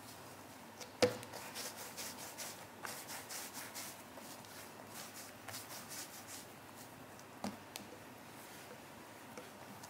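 Hands rolling and pressing a soft dough log on a silicone baking mat: a run of soft rubbing strokes, with a sharp tap about a second in and another later on.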